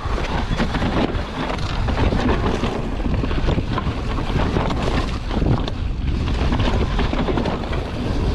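Wind rushing over the microphone of a mountain bike descending a dry dirt trail at speed, with the tyres rumbling over the dirt and the bike clattering over bumps and roots.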